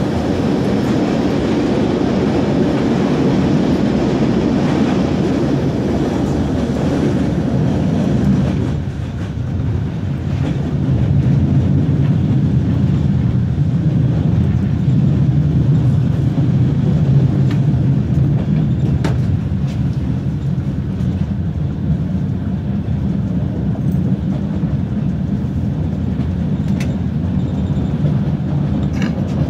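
Steady low rumble of a moving vehicle, dipping briefly about eight seconds in, with a few sharp clicks in the second half.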